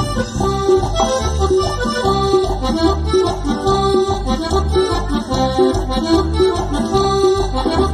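Live cumbia band playing an instrumental passage: a held lead melody over electric guitar and a steady bass-and-drum beat, about two beats a second.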